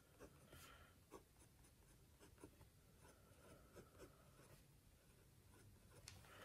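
Faint scratching of a Diplomat Excellence A2 fountain pen nib on Hahnemühle notebook paper as words are handwritten, with small scattered ticks as the strokes start and stop.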